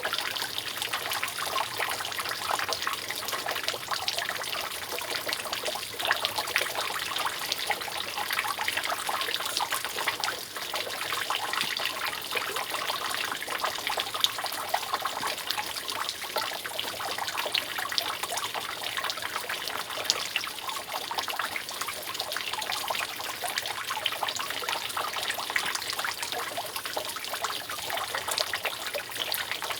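Rainwater dripping and trickling steadily off a roof: a continuous patter of many drops over a constant running-water hiss.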